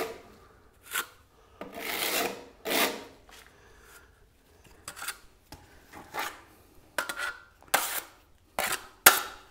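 Steel spatula scraping travertine decorative plaster onto a wall in about a dozen short, irregular strokes, spreading and smoothing it.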